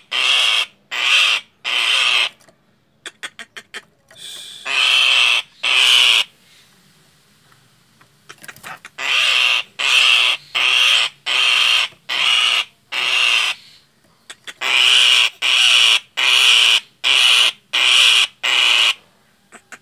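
Common myna giving repeated harsh, rasping alarm screeches, each about half a second long, in runs of about two a second with a pause partway through. This is the frightened call of a scared myna. A quick string of short clicks comes about three seconds in.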